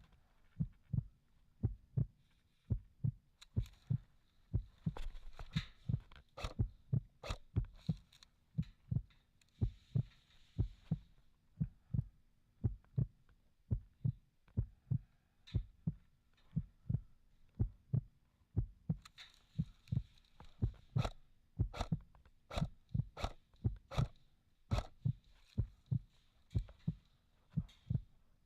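Steady low thumps, about two a second and often in pairs, with sharper clicks among them in places.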